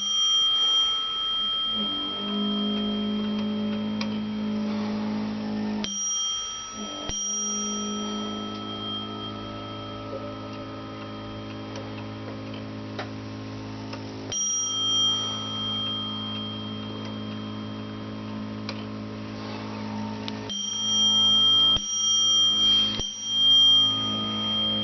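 Bell of a Warmink Sallander wall clock striking as its hands are turned by hand: single strokes at uneven intervals, each ringing on for several seconds, with three close together near the end.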